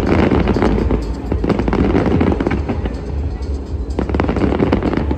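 Fireworks display going off: clusters of sharp bangs and crackling bursts over a steady low rumble, with music playing.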